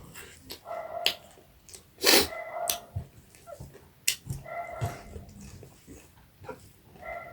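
Close-up eating sounds: chewing, lip smacks and a loud wet slurp about two seconds in. Short, high, steady whining tones repeat every couple of seconds.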